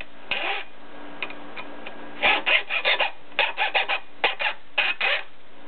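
Hacksaw cutting through the steel rail of old O27 toy train track, rasping back-and-forth strokes. A few scattered strokes at first, then quick, regular strokes from about two seconds in, about three or four a second.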